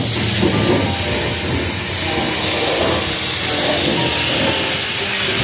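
Pressure-washer wand spraying a high-pressure water jet onto a pickup truck's wheel and tyre, a loud steady hiss.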